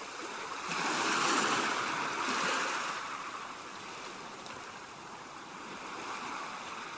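Rushing water sound effect: a steady wash of flowing water that swells louder about a second in and then eases off.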